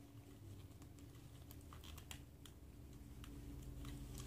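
Faint, irregular clicks and taps of hard plastic action-figure parts being handled and pressed together, over a low steady hum. The piece is a tight fit and is being forced into place.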